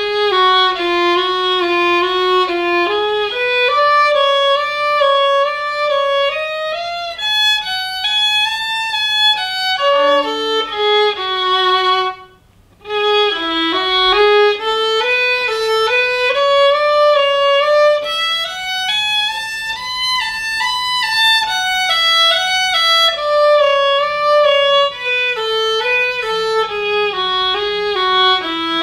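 Solo violin playing a study in F-sharp minor: a run of quick, even notes climbing and falling stepwise, with a short break about twelve seconds in before the line resumes.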